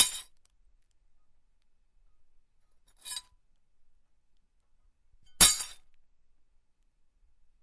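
Glass knocked against glass three times: a sharp loud clink at the start, a fainter one about three seconds in, and another loud clink with a short ring about five and a half seconds in.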